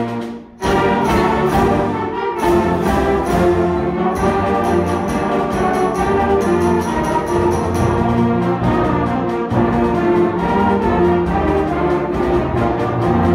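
Middle school concert band of woodwinds and brass playing. The sound breaks off briefly about half a second in, then the full band comes back in loudly and plays on.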